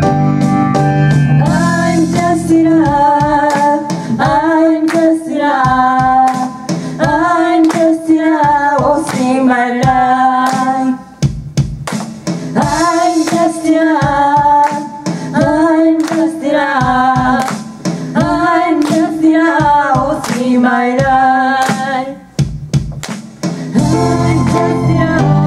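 Live band music: a woman singing a melody without clear words over electric bass and keyboard, with hand claps keeping the beat. The bass and keyboard drop back through the middle, then come in full again near the end.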